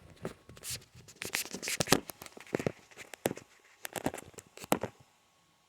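Vice grips twisting the heat spreader of an Intel i7-9700K CPU clamped in a tape-wrapped vise, working it loose from its sealant: a string of irregular clicks and cracks that stops about five seconds in.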